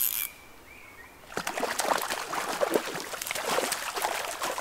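Hooked wild brown trout splashing and thrashing at the surface of the shallows as it is played in to the bank, a burst of irregular splashes starting about a second in.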